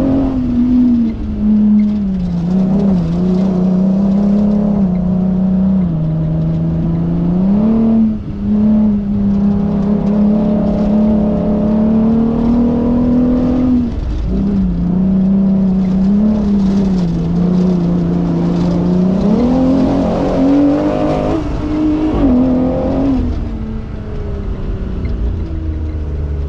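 Off-road race vehicle's engine running hard under load. Its pitch holds for a few seconds at a time, then rises or drops as the throttle changes, with a dip about eight seconds in and another about fourteen seconds in.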